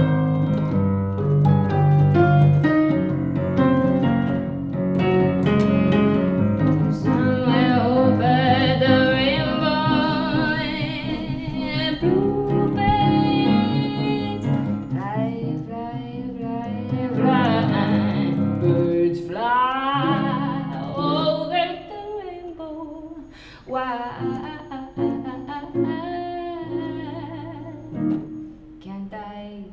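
A woman sings a song into a microphone, accompanying herself on an electric keyboard. The music grows quieter and more broken over the last several seconds.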